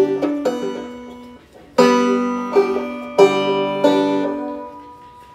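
Banjo strummed slowly, several chords each struck sharply and left to ring out and fade, with a brief pause about a second and a half in.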